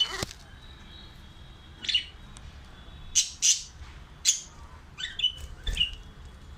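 Budgerigars giving short, sharp chirps and squawks, about eight calls spaced irregularly, several in quick succession near the end.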